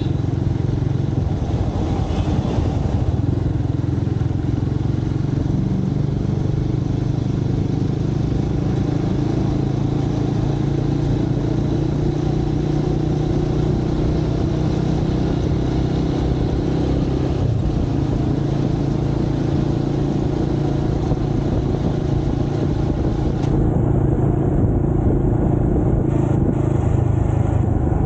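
Motorcycle engine running at a steady cruise, with wind and road noise on a camera mounted on the moving bike and city traffic around it. The engine hum breaks briefly about two-thirds of the way in and grows a little louder near the end.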